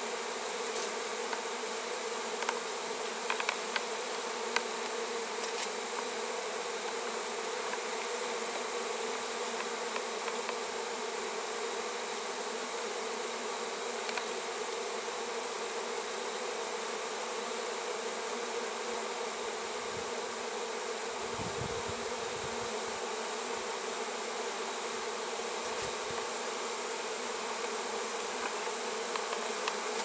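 Steady buzzing of a swarm of honeybees around their opened feral nest as the comb is cut out, with a few light clicks about three to four seconds in.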